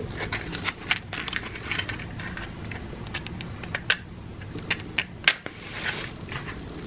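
Small clicks and scrapes of a cardboard matchbox and wooden safety match being handled, then a match struck on the box a little after five seconds in, the sharpest sound, flaring with a brief hiss.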